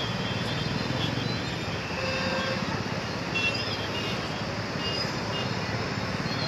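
Steady outdoor street noise of traffic, with brief faint high-pitched sounds scattered through it.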